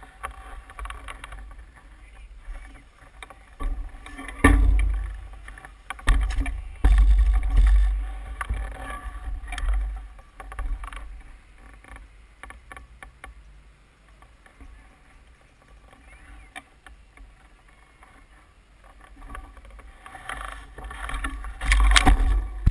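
Wind buffeting the microphone of a handlebar-mounted camera on a bicycle, with the bike knocking and rattling as it rides over rough ground. Sharp knocks stand out about four and a half seconds in, about seven seconds in and near the end.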